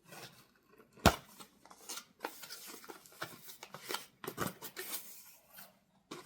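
Packaging being handled and opened by hand: irregular rustling and small clicks, with one sharp knock about a second in.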